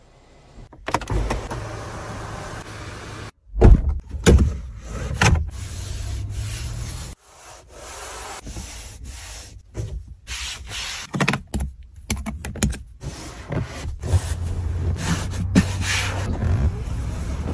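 A Toyota Tundra pickup's power-operated parts and trim being worked: an electric window motor runs steadily for a couple of seconds near the start and again near the end. In between come clicks, knocks and rubbing of plastic panels and lids, with abrupt cuts.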